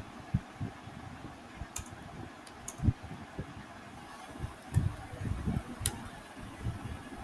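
Computer keyboard typing: irregular keystrokes and clicks at uneven spacing, some heavier than others, over a steady faint background hiss.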